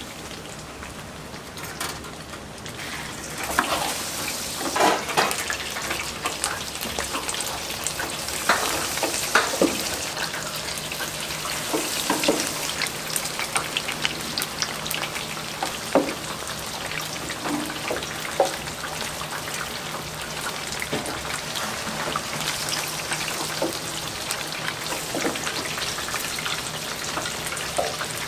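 Food deep-frying in hot oil: a steady, crackling sizzle that grows louder about three seconds in, with scattered sharp clicks and knocks throughout.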